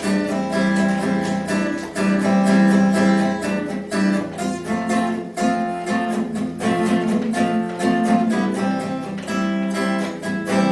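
Acoustic guitar strumming chords in a steady rhythm, an instrumental passage of a song.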